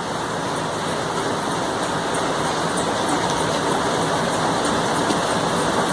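A steady rushing background noise, with faint snips of scissors cutting through a paper pattern sheet.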